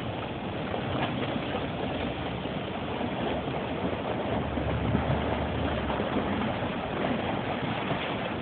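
A work boat's engine running as the boat pushes through broken ice, a low steady drone that swells about four and a half seconds in and eases off near six seconds, under a constant rushing noise.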